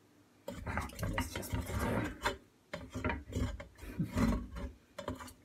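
A utensil scraping and rubbing against the bottom of a stainless steel pot in irregular strokes, working loose pasta that has stuck to the base, starting about half a second in with two short pauses.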